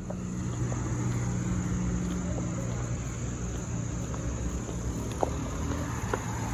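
Crickets chirring in a steady high drone over a low steady hum. Near the end there are two sharp clicks.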